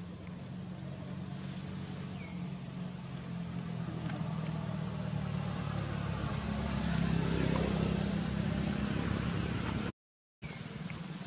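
A motor vehicle's engine running steadily, growing louder over several seconds and then easing off. The sound drops out completely for a moment near the end.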